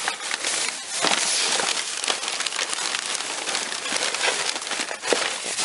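Plastic bags and boxes being rummaged through in a dumpster: continuous crinkling and rustling with many small crackles and knocks.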